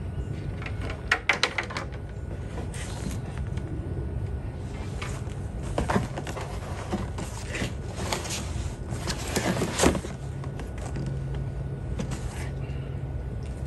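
Cardboard shipping box being handled and its flaps folded around a solar panel: scraping and crinkling of cardboard in irregular bursts, busiest about six to ten seconds in, over a steady low hum.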